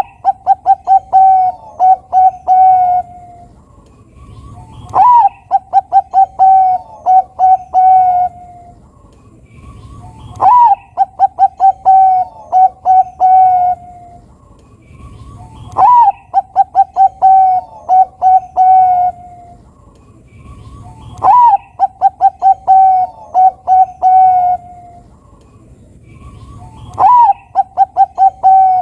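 Zebra dove of the Bangkok perkutut strain singing its cooing song. Each phrase opens with a rising-falling note, runs into a quick string of short coos and ends on a few longer held ones, and the phrase repeats about every five seconds, six times.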